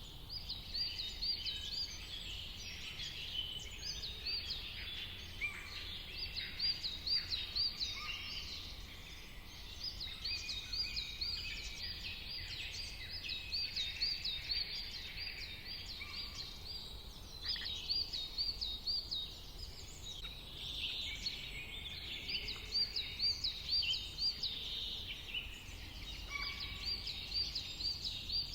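Several songbirds singing at once, a dawn-chorus-like mix of chirps and trills. One bird repeats a quick run of looping high notes every few seconds over the others.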